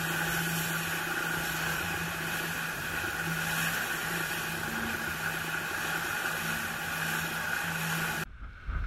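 Water rushing and hissing along the hull of a Schionning G-Force 1500 sailing catamaran moving at speed, with a steady low hum underneath. It cuts off abruptly near the end.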